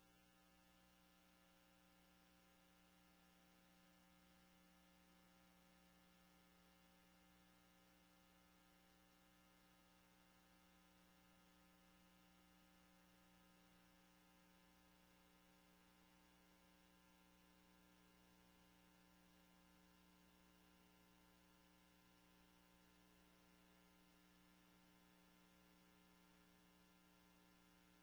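Near silence, with only a faint, steady electrical hum.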